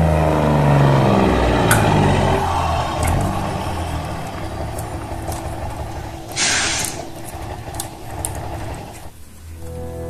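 Truck sound effect: a diesel engine note falling in pitch and running down, with a short air-brake hiss about six and a half seconds in and a few sharp clicks. Background music begins near the end.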